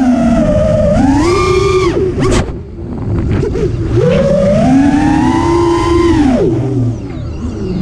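FPV quadcopter's motors whining, the pitch climbing and falling with the throttle: one throttle-up, a sudden drop about two and a half seconds in, then a second long climb that falls away near the end. A low rumble runs underneath.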